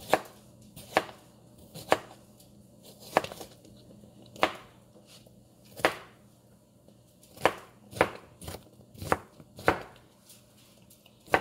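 Knife chopping cucumber on a cutting mat: about a dozen sharp knocks at uneven intervals, roughly one a second.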